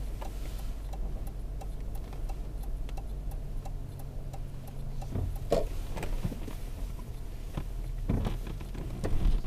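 Car turn-signal indicator ticking steadily inside the cabin over the low hum of the engine, with a couple of louder knocks about halfway through and near the end.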